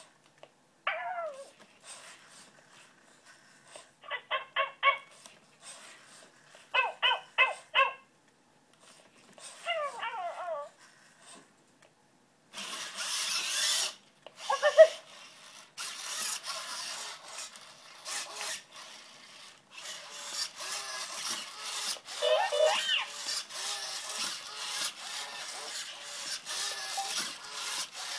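Genibo QD robot dog playing its recorded puppy sound clips: short electronic yelps and whines, and two quick trains of rapid little barks in the first half. From about halfway a scratchy noise with many sharp clicks takes over, with another yelp or two in it.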